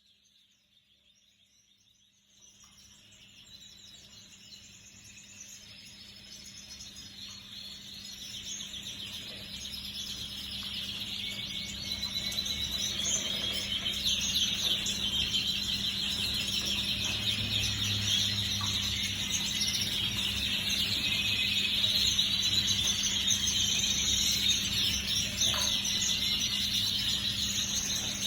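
Canary singing in rapid high trills, starting about two seconds in and growing louder over the next ten seconds, over a steady low hum.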